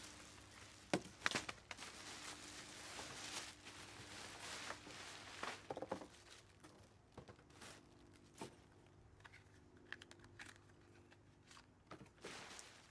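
Plastic wrapping crinkling and rustling as a bagged inflatable decoration is pulled from a cardboard box and unwrapped, with a few sharp clicks and knocks of handling, the loudest about a second in.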